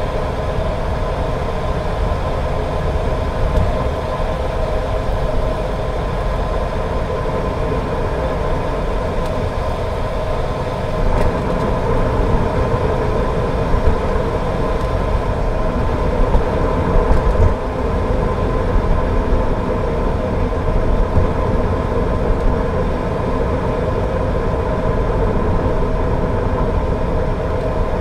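Car being driven in the rain: a steady low rumble of engine and tyres on wet road, with a constant hum, growing a little louder about eleven seconds in.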